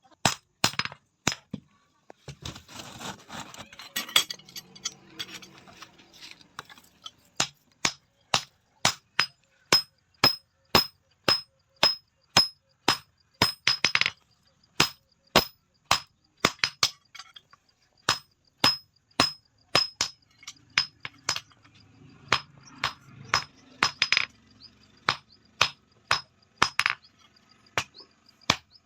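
Steel being struck by hand with a hammer on an anvil, one sharp metallic blow after another at about two a second, each with a short high ring.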